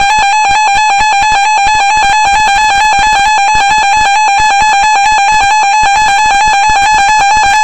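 Emergency Alert System attention signal: a loud, steady, harsh alert tone held without a break.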